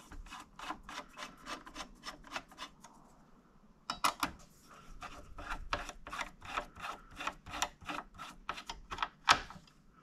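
A screwdriver turning the CPU heatsink's retaining screws in a Dell 7010 desktop: a run of quick clicks, about three or four a second, with a break of about a second around three seconds in.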